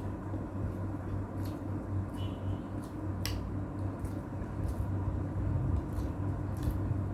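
A person eating: soft, wet chewing and mouth sounds with scattered small clicks, the sharpest a little past three seconds in, over a steady low hum.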